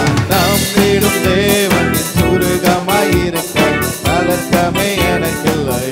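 Tamil Christian worship song: a man singing into a microphone over electronic keyboards, with a steady drum beat.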